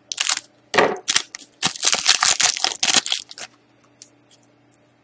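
Foil wrapper of a hockey-card pack crinkling and crackling as it is cut open with scissors and the cards are pulled out, a rapid string of sharp rustles for about three and a half seconds. After that only a few faint clicks as the cards are handled.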